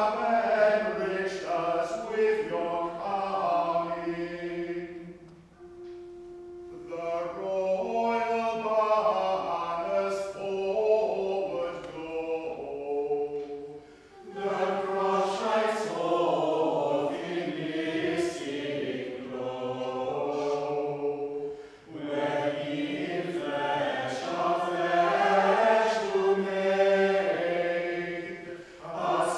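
A group of voices singing a slow chant in phrases, with brief pauses between them.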